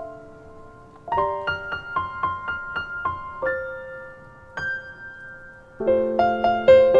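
Gentle solo piano background music: single notes and soft chords, swelling into fuller chords near the end.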